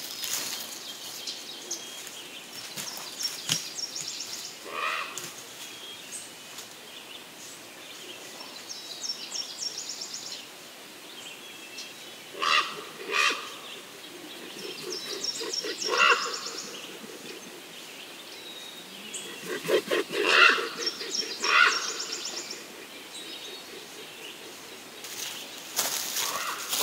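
Forest birds singing: a high, trilled song phrase repeats every five or six seconds. Several louder, lower-pitched calls from another bird come in pairs and singles through the middle, with rustling and handling clicks at the start and near the end.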